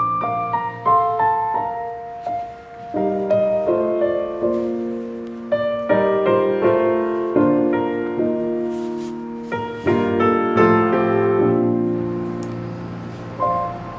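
Background piano music, notes struck and left to fade.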